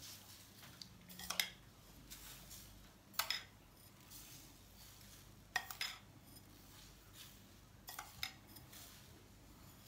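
Metal spoon clinking and scraping against dishes while scooping granulated sugar: a few light clinks in small clusters, about every two to three seconds.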